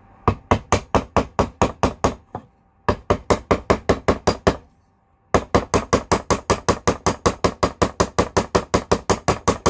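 Small cross pein hammer tapping rapidly on the end of metal tubing held in a mitre jig, about six light metallic taps a second, to splay the tube out into a rivet head. The tapping comes in three runs, with short pauses about two and a half and four and a half seconds in.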